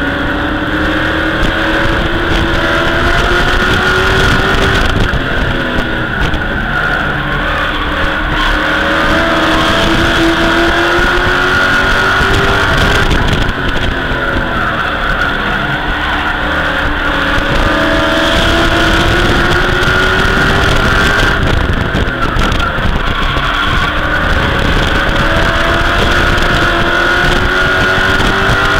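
Pro Truck race truck's engine at racing speed, heard from inside its own cockpit. The engine note climbs for several seconds and then drops sharply, about every five to eight seconds, as it accelerates and lifts lap after lap. A steady rush of wind and road noise runs under it.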